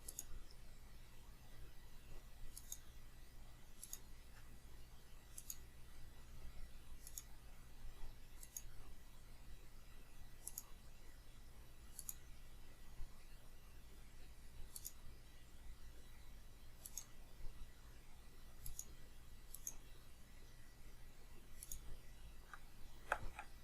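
Faint, sharp computer mouse clicks at irregular intervals of about one to two seconds, placing the points of a line being drawn in a sketch.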